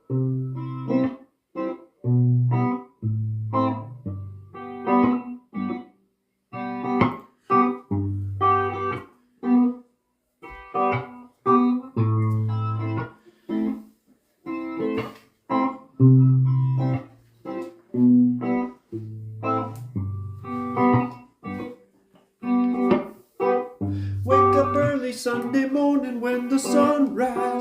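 Instrumental song intro: plucked guitar chords over deep bass notes, in short phrases with brief gaps. The playing grows denser near the end.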